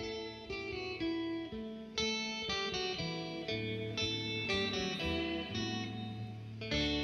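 Background music: a melody of plucked guitar notes.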